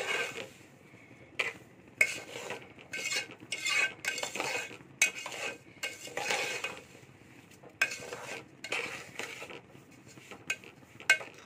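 Metal spoon scraping and clinking against a steel pan as semolina is stirred while it roasts to golden. Irregular scraping strokes with a few sharp clinks, kept going so the semolina doesn't catch or burn on the bottom.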